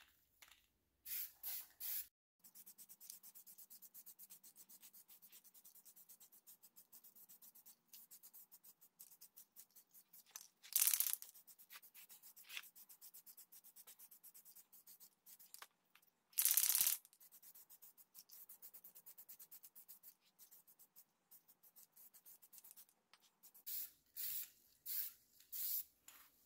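Aerosol spray paint can (Rust-Oleum flat camo, solvent-based) hissing in short bursts as paint is sprayed onto a wooden axe handle. The two longest hisses come about a third and two-thirds of the way through, with a quick run of short ones near the end and a faint crackle in between.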